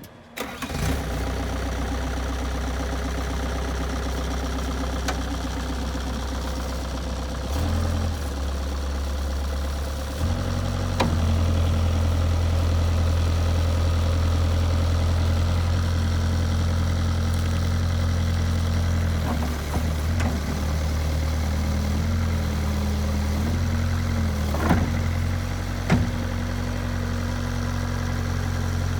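Bobcat 175 skid-steer loader's diesel engine starting about half a second in, then running steadily. It picks up speed around ten seconds in, with a few short clanks in the second half.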